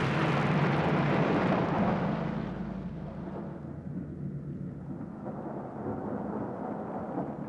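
Rolling rumble of a Challenger 2 tank's 120 mm main gun shot echoing away, loud at first and fading over about three seconds. A quieter low rumble goes on after it.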